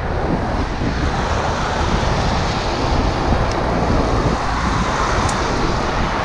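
Wind rushing over the microphone of a camera on a moving vehicle, with a steady hiss of tyres and traffic on a wet road.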